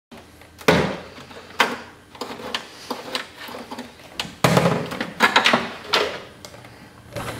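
Knocks and clunks of a car's side-view mirror being lifted off the door, its housing bumping the door's sheet metal amid rustling handling, with sharp knocks about a second in and a busier burst of clunks from about four and a half to six seconds in.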